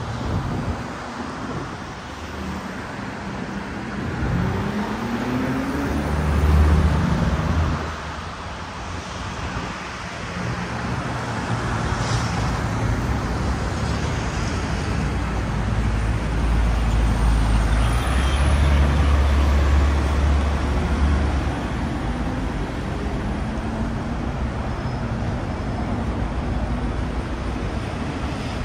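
City street traffic: passing cars and heavier vehicles, with one engine rising in pitch as it pulls away about four seconds in. Deep engine sound from larger vehicles swells loudest a few seconds later and again around two-thirds of the way through.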